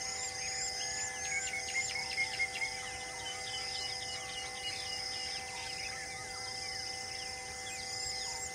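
Evening insect and bird chorus: a steady high insect trill with a repeating pulsed chirp, under a hum of steady tones, and scattered bird calls that come thickest about two seconds in.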